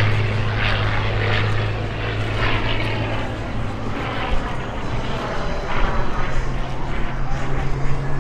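Supermarine Spitfire Mk Vc's Rolls-Royce Merlin V12 engine and propeller droning steadily in a display pass overhead, its note rising toward the end.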